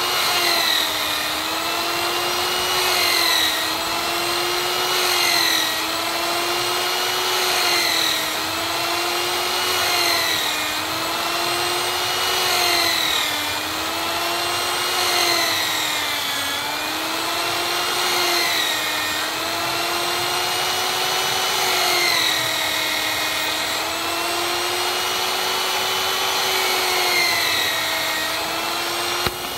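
Bench-mounted electric drill running continuously while it bores a row of holes through a wooden strip. Its motor pitch sags briefly about every two seconds as the bit bites into the wood for each hole, then recovers.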